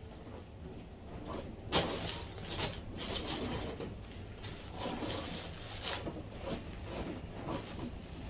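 Plastic mailer bag crinkling and rustling as it is handled and opened, in several irregular bursts, the sharpest about two seconds in.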